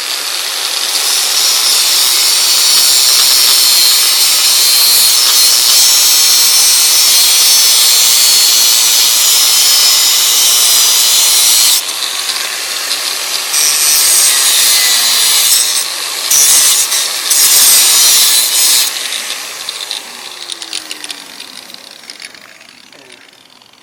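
Dremel rotary tool running at high speed and cutting, a steady high-pitched whine for the first half, then pressed in again in several louder surges before it winds down and fades out near the end.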